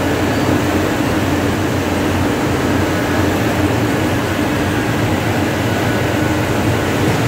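Steady machine hum: a constant rushing noise with a low droning tone that neither starts, stops nor changes.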